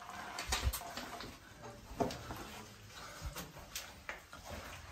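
Scattered faint scuffs, clicks and light knocks of cavers moving and handling gear on rock, with a sharper knock about two seconds in.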